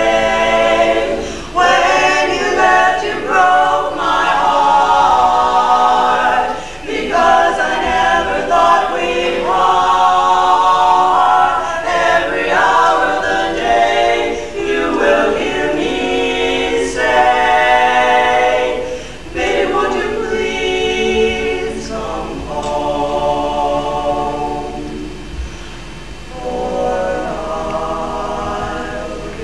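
A quartet of four women singing a cappella in close four-part harmony, in phrases with short breaths between them, a little softer in the last third.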